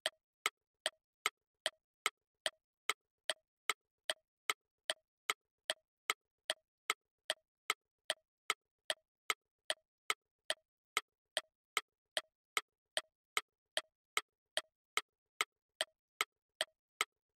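Clock tick-tock sound effect ticking steadily, a little over two ticks a second, marking a quiz countdown timer as it runs down.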